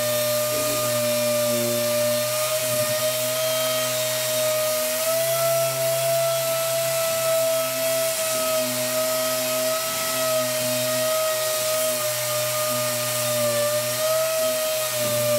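SurfPrep random orbital sander running steadily on a wooden cabinet door: a constant high whine whose pitch sags slightly now and then under hand pressure. Under it is the hiss of the central vacuum, which draws the sanding dust through holes in the pad.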